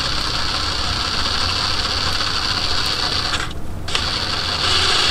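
Handheld power tool running a fastener in two long steady runs, with a short pause about three and a half seconds in.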